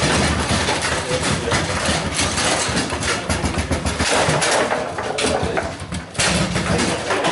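Table football in play: the ball knocking against the figures and table walls and the rods clacking, in a dense run of sharp knocks over a steady clatter of play at other tables.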